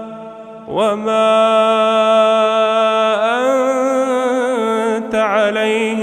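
A man's voice in melodic Quran recitation, starting a phrase about a second in and holding long drawn-out notes with ornamental turns of pitch.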